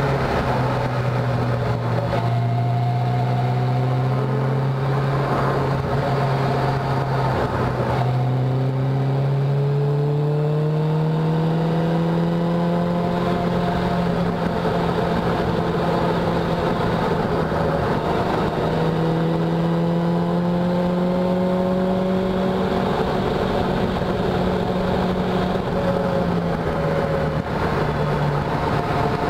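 Caterham Seven's engine heard from the open cockpit at speed: a steady note that climbs in pitch over several seconds about a third of the way in as the car accelerates, holds high, then drops a little near the end as the car slows.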